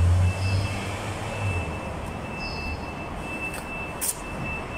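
Low rumbling background noise, strongest in the first second and a half, with a thin high-pitched beep repeating about twice a second and a few short high chirps.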